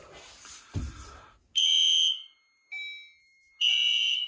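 System Sensor SpectrAlert horn-strobe sounding short, shrill horn blasts during a fire alarm walk test: one about a second and a half in, another near the end. A fainter single tone rings and fades between them. The horn sounds slightly off, which the owner puts down to the alarm panel's power.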